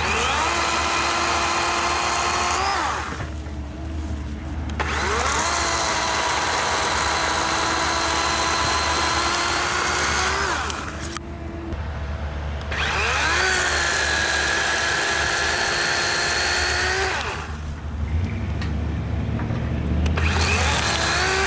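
DeWalt 40V cordless electric chainsaw cutting brush and small limbs in four runs of a few seconds each. It gives a steady electric whine that rises in pitch each time the trigger is pulled and falls away when it is released.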